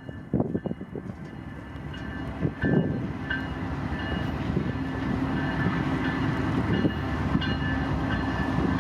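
Diesel-hauled freight train approaching, its low engine rumble growing steadily louder, with thin high-pitched tones coming and going over it.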